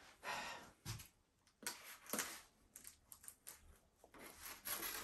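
Furniture packaging being handled and opened: faint, scattered rustling with a few soft knocks.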